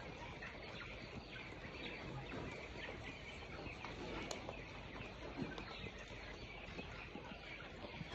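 Many birds chirping in short, overlapping calls over a steady background hiss.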